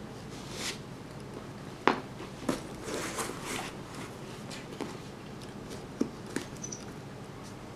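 Cardboard jigsaw puzzle pieces being handled, slid and tapped down on a puzzle board and wooden floor. There are a few sharp taps, the loudest about two seconds in and another about six seconds in, with light scraping and rustling between.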